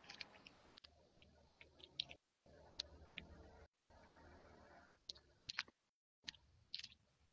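Near silence with scattered faint clicks and several brief spells of total dead air: the live stream's audio dropping out.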